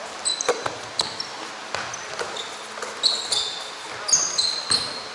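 Basketball game on an indoor court: a ball bouncing in irregular thuds, mixed with many short, high-pitched sneaker squeaks.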